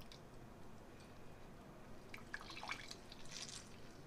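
Faint dripping and light splashing of water as a slice of bread is wetted by hand from a bowl of water, mostly in the second half.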